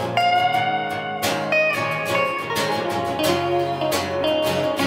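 Live band playing the instrumental ending of a country-pop song, with guitar leading: strummed chords under a melodic guitar line that glides in pitch about a second and a half in.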